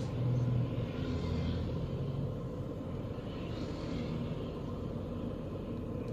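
Steady low road-traffic noise, with a car passing close by at the start and other vehicles swelling past a few seconds later.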